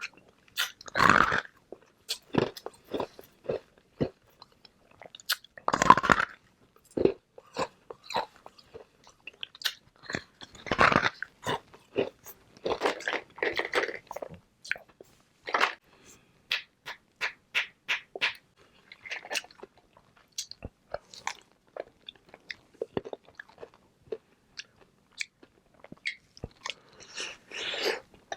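Hard flavoured ice balls being bitten and chewed: a few loud crunching bites spaced several seconds apart, each followed by runs of sharp cracks as the ice pieces are chewed up.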